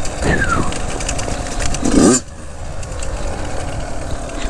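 Dirt bike engine running on a trail, the revs rising briefly about two seconds in before the throttle is shut and the sound drops off sharply; it then runs on more quietly.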